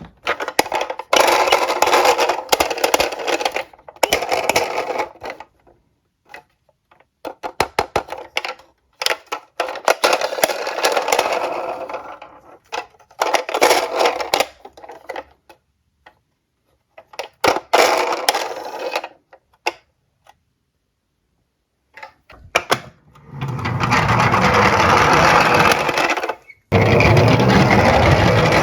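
Diecast toy cars rolling and rattling down a slope in a series of short runs with pauses between them, some runs breaking into quick trains of clicks. Near the end comes a longer, louder rolling run.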